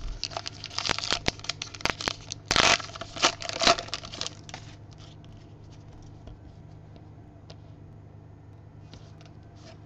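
Baseball trading cards handled and slid across one another by hand: a flurry of papery rustles and flicks, loudest about two and a half seconds in. After about four and a half seconds it drops to a few faint flicks.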